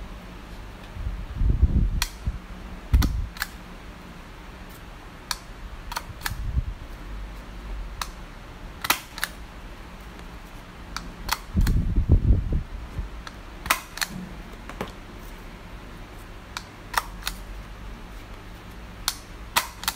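Hand-held hole punch clicking as it punches holes through a strip of cardboard, a sharp click again and again at uneven intervals. A few duller, louder thumps come about two seconds in and again around the middle.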